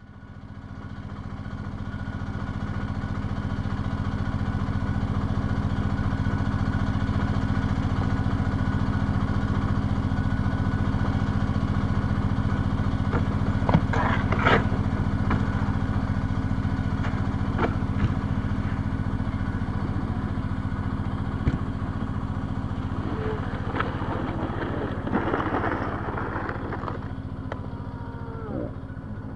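A steady, engine-like droning hum of several held pitches, fading in over the first few seconds, with a few sharp clicks around the middle and a short falling glide near the end.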